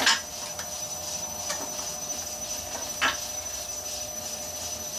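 Powermatic wood lathe running steadily with a thin high whine, turning a large mesquite log. Two sharp knocks stand out, one right at the start and another about three seconds in.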